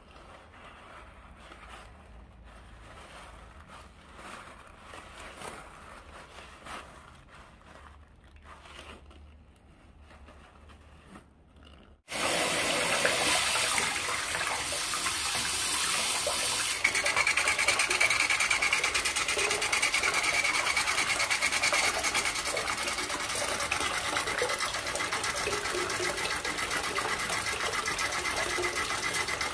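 Faint squeezing and handling of a balloon filled with Orbeez water beads. About twelve seconds in, it switches abruptly to a much louder, steady stream of water from a hand-held shower head splashing onto a dome in a stainless steel bowl.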